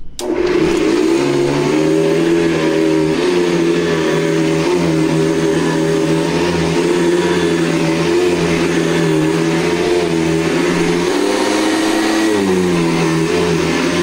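Hoover Convertible upright vacuum cleaner switched on with a click and running steadily as it is pushed over carpet, a loud motor drone that wavers slightly in pitch over a rushing hiss. With the brush roll and belt fitted it sounds like a dirt bike. The owner takes this for a fault he could not find, since the motor alone sounds fine.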